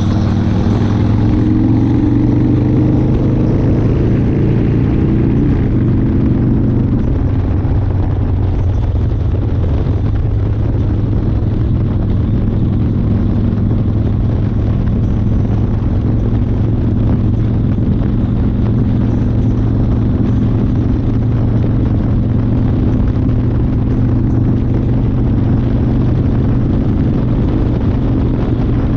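1992 Harley-Davidson Fat Boy's Evolution V-twin running under the rider. Its note falls over the first several seconds, then holds steady for the rest.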